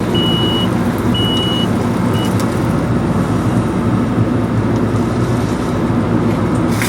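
Excavator's diesel engine running steadily, with its alarm beeping twice near the start, then one clipped short beep.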